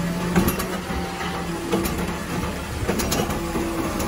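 Automated side-loading garbage truck emptying and lowering a wheelie cart: the engine and hydraulic arm run with a steady hum that comes and goes. A few sharp knocks sound as the cart is shaken out and set back down.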